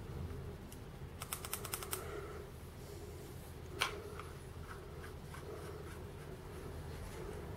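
Small sharp clicks from handling a vape tank and box mod (Smok Morph 219 with its TF tank) as the tank is fitted onto the mod: a quick run of about eight clicks between one and two seconds in, then a single louder click, then a few faint ticks.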